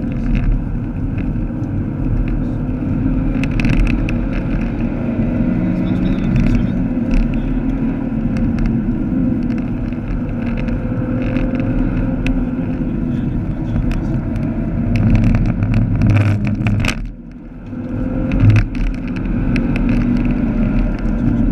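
Vauxhall Astra VXR's turbocharged 2.0-litre four-cylinder engine running at speed on track, heard from inside the cabin over tyre and road noise. About 17 seconds in the engine sound briefly drops away, then picks up again.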